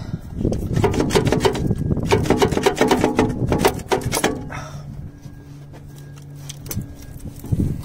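Rapid rasping, ratcheting metal noise for about four seconds as the alternator is worked by hand at its pulley, then it stops and a fainter steady hum remains.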